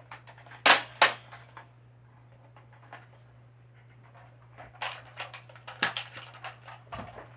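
Plastic clicks and knocks of foam darts being pushed into a Nerf blaster, with two sharp loud clicks about a second in and a quick run of clicks near the end, over a steady low electrical hum.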